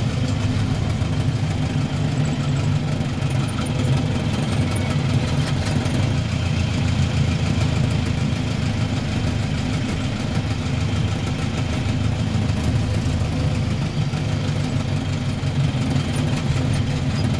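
Delivery van's engine running steadily at low speed, heard from inside the cab as the van creeps forward.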